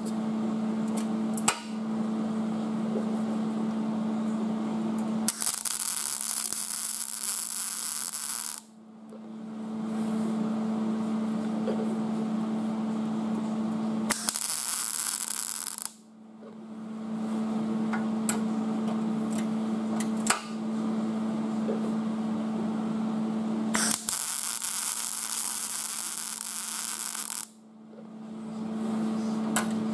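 MIG welder laying plug welds through the holes of a sheet-metal inner rocker panel: three bursts of arc crackle, about three, two and three and a half seconds long, over a steady electrical hum.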